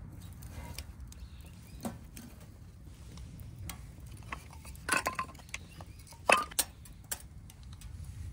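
Metal camp cookware being handled: scattered light clicks and clinks, with two louder clusters of clinking about five and six seconds in.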